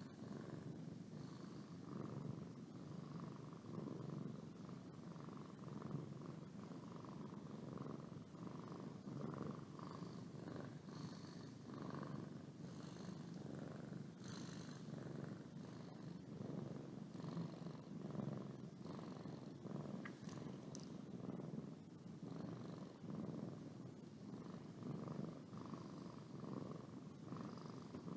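Domestic cat purring steadily, a low rumble that swells and eases every second or two with its breathing.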